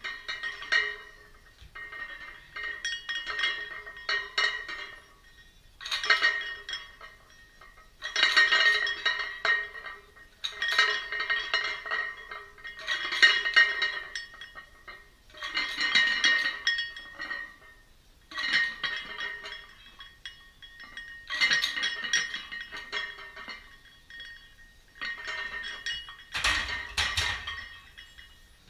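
Iron weight plates clinking and ringing against a loaded barbell's sleeves with each back-squat rep: a burst of metallic rattling about every two and a half seconds, around ten times over.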